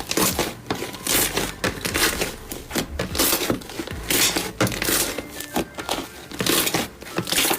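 Slime being handled and squeezed, giving a dense, irregular run of crinkly crackles and snaps.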